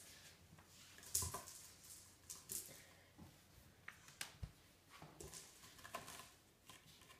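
Faint, scattered soft taps and brushing sounds of a kitten scampering on a wooden floor and around a scratching post, the loudest tap about a second in.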